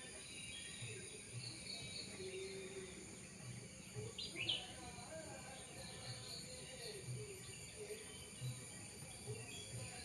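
Birds chirping in short scattered calls, with one louder, sharp call about four seconds in.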